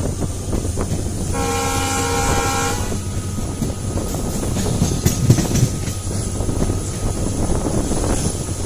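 EMD WDP4D diesel locomotive sounding its chord horn once, about a second in, for a second and a half. Under it the locomotive's two-stroke diesel engine hums steadily, with the rumble and clatter of the train running on the track.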